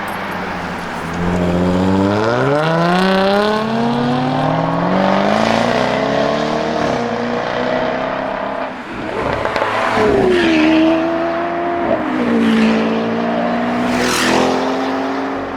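Jaguar F-Type SVR's supercharged V8 accelerating hard: the engine note climbs, falls back at each upshift and climbs again, several times. Two sharp cracks come near the end.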